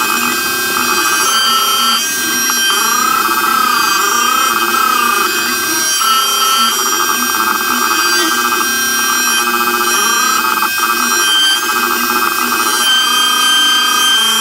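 X-Carve CNC router V-carving red oak with a 60-degree bit: a steady high spindle whine, with motor tones that glide up and down again and again as the machine traces the lettering.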